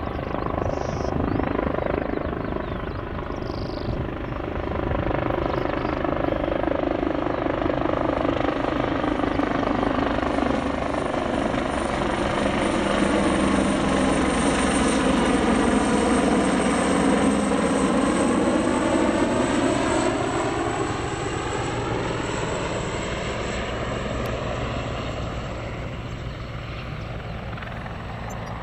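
Airbus H175 twin-turboshaft helicopter flying past low on its landing approach: rotor beat under a high turbine whine, growing louder to a peak about halfway through as it passes close, then fading.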